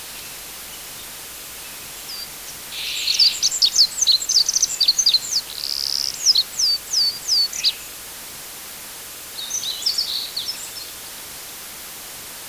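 Forest ambience with a songbird singing over a steady faint hiss. It gives a fast run of high, down-sweeping notes lasting about five seconds, then a shorter phrase about two seconds later.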